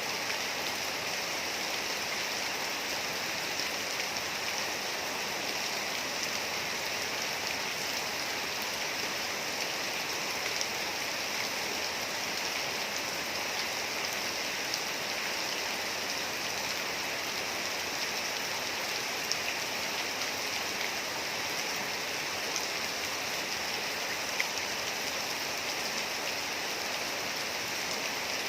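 Steady rain falling, an even hiss with occasional single drops ticking out.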